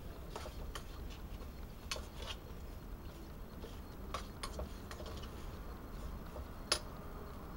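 Titanium spork clicking against the metal cooking pot as it stirs the beans: a handful of light, irregular clicks, the sharpest near the end.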